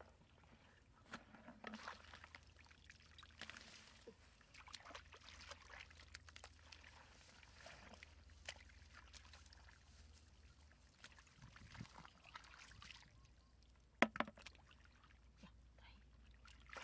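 Faint sloshing and splashing of shallow muddy water as hands grope and dig through the mud, with one sharper splash near the end.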